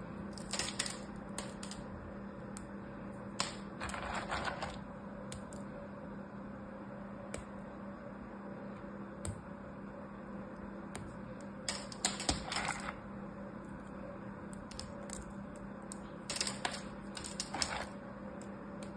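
Thin dry strips of carved soap crunching and snapping between fingertips: crackly clicking in four short bouts, over a faint steady hum.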